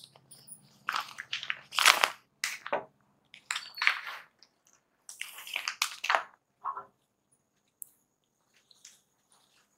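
Rustling and crinkling as a ladies' suit is handled: a run of irregular rustles for about six seconds, then only a few faint scrapes.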